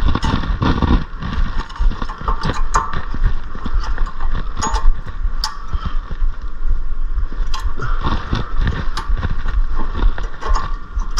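Irregular metallic clicks, knocks and scraping from hand tools and parts being worked on a car's disc brake assembly, with a low hum underneath.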